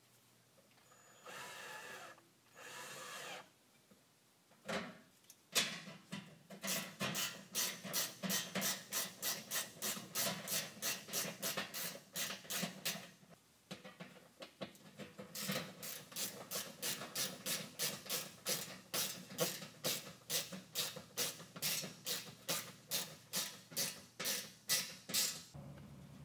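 A cordless drill runs twice, about a second each. Then comes a long series of rhythmic scraping strokes, about two to three a second, with a short pause midway.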